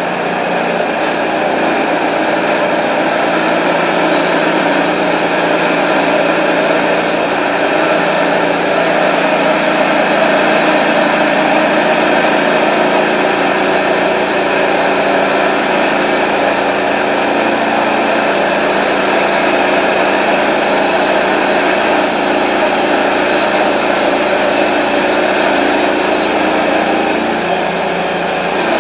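TimberKing 1220 manual band sawmill running steadily at full speed, its engine driving the band blade as the head is pushed by hand through a hemlock log.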